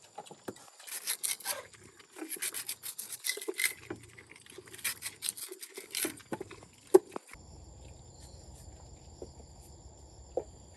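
Rapid scraping and clicking strokes, like something being rubbed or scraped by hand, for about seven seconds. Then an abrupt cut to steady outdoor ambience, with insects chirring in thin, unbroken high tones over a low hum.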